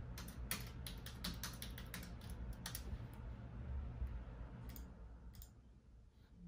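Typing on a computer keyboard: a quick run of key clicks for about three seconds, then a few scattered keystrokes before it stops.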